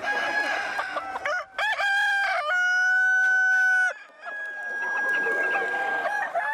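Roosters crowing: several long crows one after another, each held for one to two seconds, over chickens clucking.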